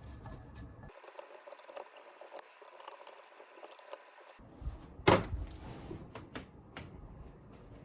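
Scattered light clicks and handling knocks, with one louder click about five seconds in.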